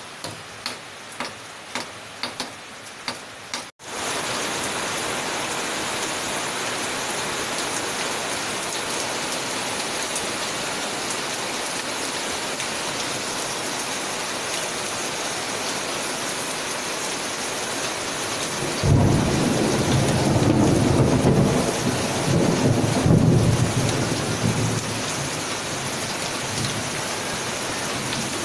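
Regular drips of water tapping about twice a second, then an abrupt switch to heavy rain falling steadily. About two-thirds of the way through, a rumble of thunder starts suddenly, swells, and rolls on for about six seconds.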